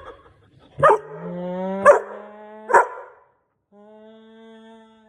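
A puppy barking three times in about two seconds, each bark drawn out into a howl. After a pause it gives a quieter, long, slowly rising howl.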